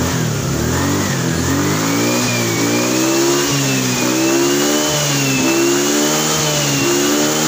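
Automatic scooter engine revved up and down several times with the throttle, running smoothly with the turn signal off. It is the normal sound, free of the sputtering that comes only when the turn signal is switched on.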